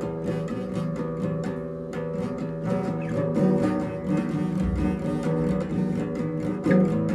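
Instrumental intro of a song: guitar playing chords in a steady, even rhythm, with no singing yet.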